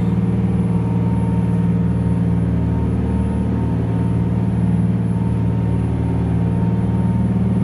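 A steady, loud low motor hum with no change in pitch.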